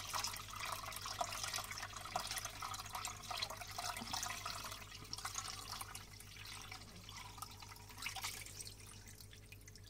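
Water kefir being poured through a sieve into a large jar, the liquid splashing and dripping, growing fainter toward the end.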